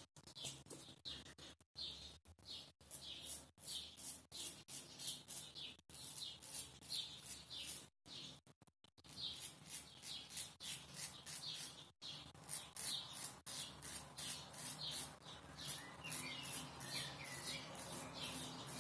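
Kamisori straight razor scraping through four-to-five-day beard stubble: a run of short rasping strokes, a few a second, with a brief pause about eight seconds in.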